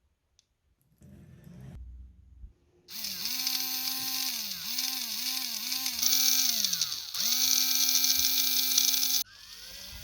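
Small electric motor driving a homemade plastic gearbox from an old toy car, whining as it is run by radio control. It spins up, holds, and slows down again several times, with a quick run of short speed changes in the middle, and stops abruptly near the end.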